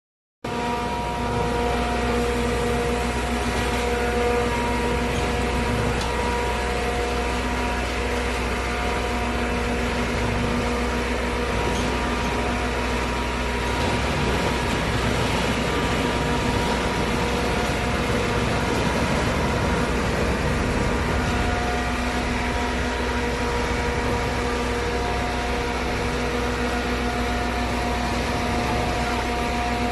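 Aimix ABJZ40C diesel concrete mixer pump running steadily while mixing concrete: a constant engine drone under an even, pitched hum.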